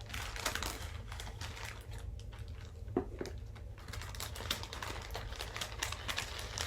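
Packaging and filler material being rustled and crinkled by hand while a small package is unpacked: a steady run of small dry crackles and clicks.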